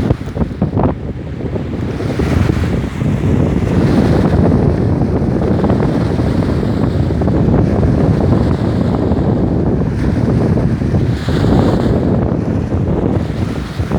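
Wind-driven lake waves under strong wind, with the wind buffeting the microphone in a steady low rumble.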